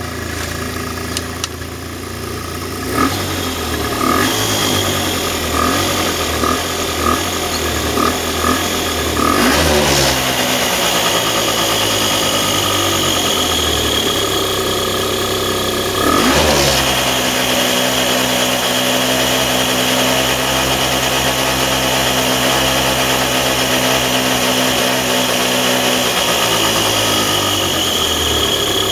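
A microcar's small engine running, its speed shifting twice, with a steady high whine over it from about a third of the way in and short ticks before that. This is the abnormal noise the owner is showing from the car.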